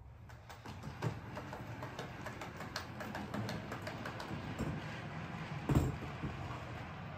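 On30 model train running on the layout track: a low steady hum with irregular small clicks throughout, and one louder knock about six seconds in.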